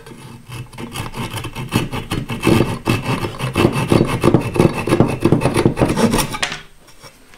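Flush-cut hand saw cutting through a 5/16-inch wooden dowel plug, a quick run of rasping back-and-forth strokes that grow louder midway and stop near the end.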